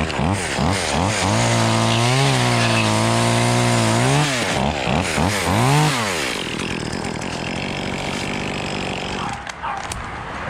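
Two-stroke chainsaw revved in quick bursts, held at high revs for a couple of seconds, then blipped again while trimming a palm tree. From about six seconds in it settles to a lower, steadier run, which falls away about nine seconds in.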